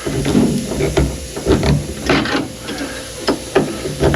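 Window felt (window fuzzy) and stainless trim being worked into a car's window channel by hand: a run of irregular knocks, taps and rubbing scrapes.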